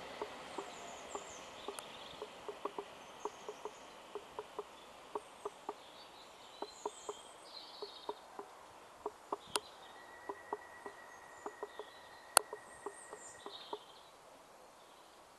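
Iarnród Éireann 8510-class DART electric multiple unit coasting slowly into the station, heard faintly as a run of small clicks, a few a second at uneven spacing, with two sharper clicks. A steady high whine lasts about three seconds from about ten seconds in, and there are scattered bird chirps.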